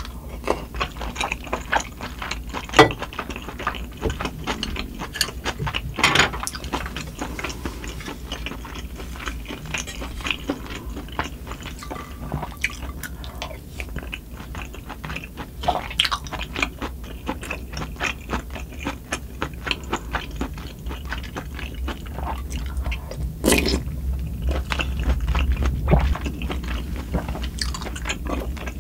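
Close-miked eating sounds: chewing and wet mouth noises while eating spicy sundae-gukbap (Korean blood sausage and pork soup), with many short clicks of utensils against the bowl and pot. A steady low hum lies underneath, which the uploader puts down to wind and rain.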